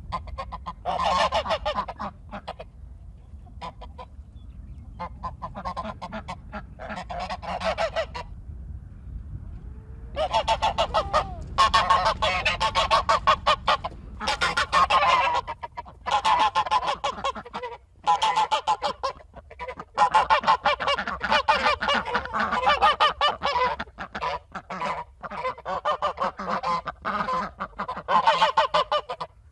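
Goose honking in a long series of loud, repeated calls, sparse for the first several seconds and then almost continuous from about a third of the way in.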